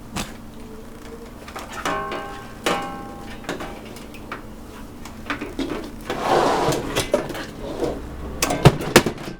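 Hands working on the metal housing of an LED grow light, pulling it apart: irregular clanks and knocks, two of them ringing briefly, a stretch of scraping, and the sharpest knocks near the end.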